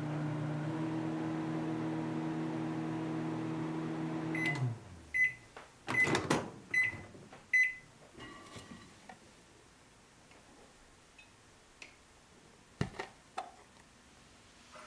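Microwave oven running with a steady hum that winds down about four and a half seconds in, followed by about five short end-of-cycle beeps. Loud clicks as the door is opened come in the middle of the beeps, and there is a single knock near the end.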